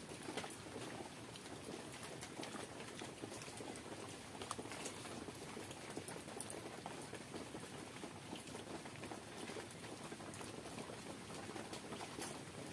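Wet hand-eating sounds: fingers squelching through watery fermented rice (pakhala) in a steel bowl, and chewing, with many small wet clicks and smacks.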